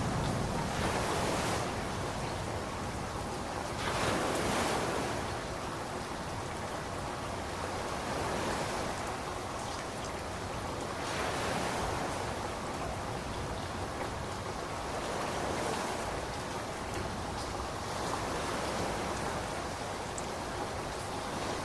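Ocean surf washing in over a steady hiss, swelling and ebbing every few seconds. The tail of a low thunder rumble dies away at the very start.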